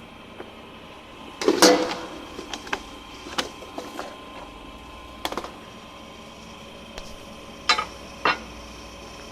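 A series of irregular clicks and knocks, the loudest about one and a half seconds in and two close together near the end, over a steady mechanical hum.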